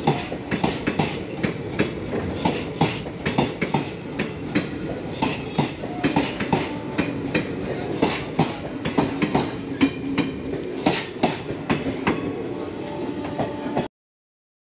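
Passenger train coaches rolling past, their wheels clattering over the rail joints in a steady clickety-clack over a running rumble. The sound cuts off abruptly near the end.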